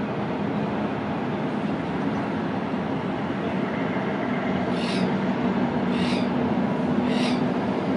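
Diesel-electric locomotive engine running as it approaches, a steady low drone that grows a little louder. Three short high-pitched chirps, about a second apart, come in the second half.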